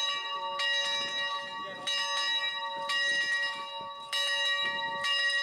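A large metal bell struck repeatedly, roughly once a second, each stroke ringing on into the next, with faint voices of people talking underneath.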